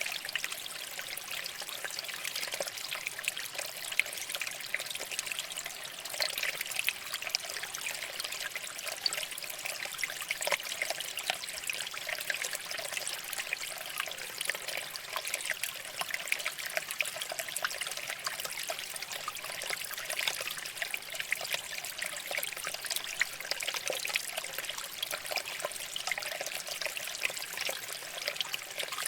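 Shallow water flowing and trickling over rocks, a continuous babbling with many small splashes and no change in level.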